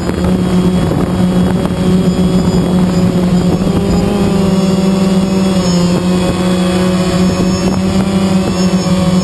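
The electric motors and propellers of a small camera drone, heard from the camera mounted on it. It makes a loud, steady buzzing hum, and from a few seconds in a few higher whining tones waver slightly in pitch as it flies.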